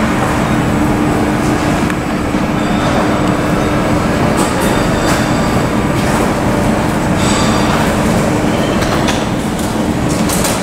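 Airliner jet engines running at taxi idle: a loud, steady rumble with a steady hum through it.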